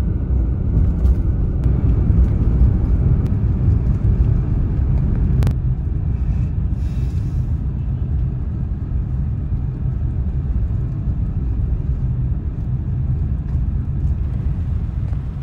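Steady low rumble of a car driving along a road, tyre and wind noise heard from the moving vehicle, with a single sharp click about five and a half seconds in.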